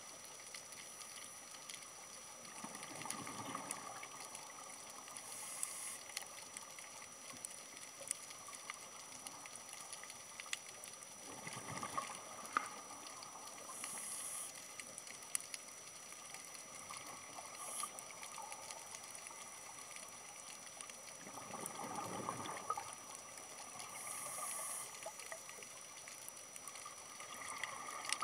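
Underwater sound of scuba breathing: a gurgle of exhaled bubbles swells about every nine to ten seconds, with short high hisses from the regulator in between. A faint steady hiss and scattered small clicks run underneath.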